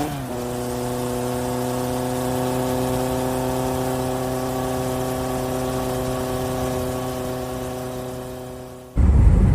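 A steady engine hum with a clear, even pitch, dipping slightly at the start and fading over the last couple of seconds. Near the end it cuts off abruptly into loud wind buffeting on the microphone.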